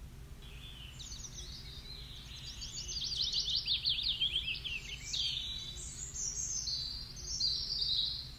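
Outdoor birdsong ambience: small birds chirping and trilling in quick, high, falling sweeps, busiest around the middle, over a faint steady low rumble.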